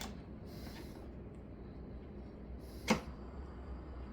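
Handling noise from a portable record player while a record is put on: a faint click at the start and one sharp knock about three seconds in, over a low steady hum.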